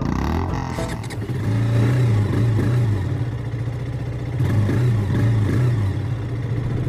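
KTM motorcycle engine running, its pitch rising and falling a little with the throttle.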